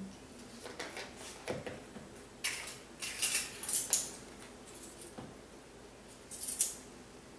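A garlic powder jar and a measuring spoon being handled: scattered clicks, then bursts of clinking and rattling as the spoon works in and around the jar, with the loudest rattle near the end.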